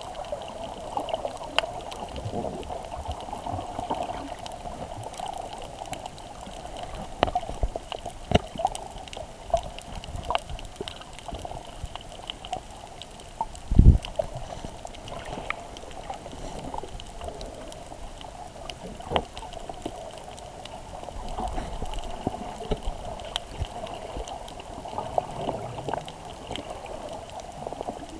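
Muffled underwater sound picked up by a submerged camera: a steady water hiss with scattered sharp clicks, and one low thump about 14 seconds in.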